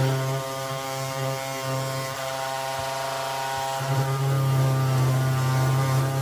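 Drill press motor running steadily while drilling a 10mm hole through wood: a hum with many overtones that grows a little louder about four seconds in.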